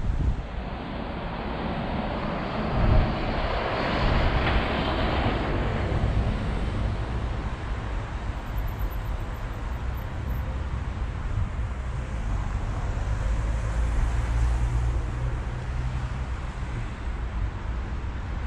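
Steady low rumbling outdoor noise with a hiss, swelling into a louder rush about four to five seconds in, with a short thump about three seconds in.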